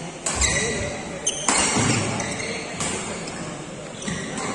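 Shuttlecock struck back and forth by badminton rackets in a fast doubles rally: several sharp hits about a second apart, ringing in a large hall, over a low murmur of spectators.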